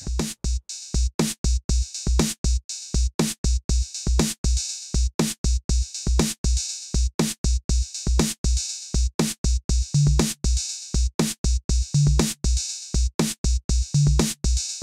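Looping electronic drum-machine beat from the Beatdown step sequencer: a steady pattern of low kick-drum thumps and sharp, bright hits. From about ten seconds in, a deeper pitched drum note joins roughly every two seconds.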